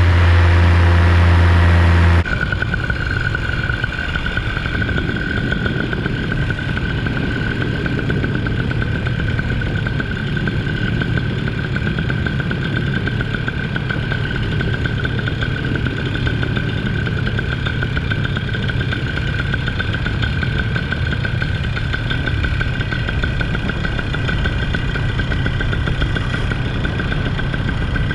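A motor engine running steadily without changes in speed. It comes after a louder low hum that cuts off abruptly about two seconds in.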